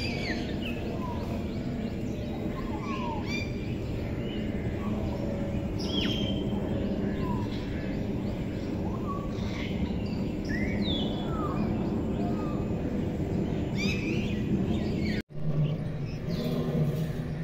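Several birds chirping and calling, short rising and falling chirps again and again, over a steady low rumble of background noise. The sound drops out for an instant about fifteen seconds in, and a steady low hum follows.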